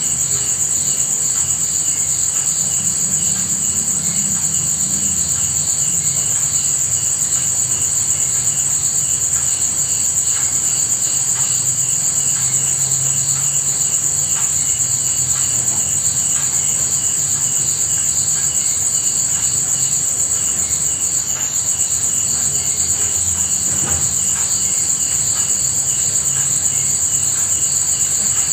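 Insect chorus: a steady, shrill, high-pitched drone with rhythmic chirping pulsing through it, typical of crickets.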